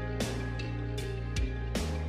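Instrumental background music: sustained chords over a steady bass, with a new note struck about every three-quarters of a second.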